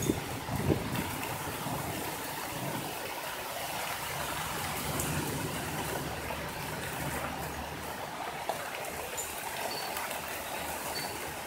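Severe thunderstorm winds rushing through the street trees as a steady rushing noise, with a few low thumps of wind hitting the microphone near the start.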